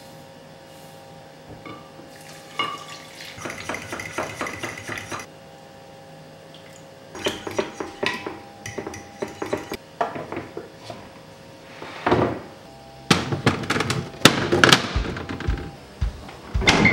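Chia seeds poured from a measuring scoop into a glass container, then a metal spoon clinking and scraping against the glass as the chia pudding mix is stirred. A few louder knocks and clatters come near the end.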